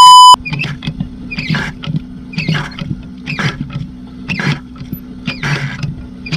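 A loud electronic beep cuts off just after the start. Then comes a rhythmic squeak about once a second over a steady engine hum, typical of an irrigation pump being hand-primed stroke by stroke.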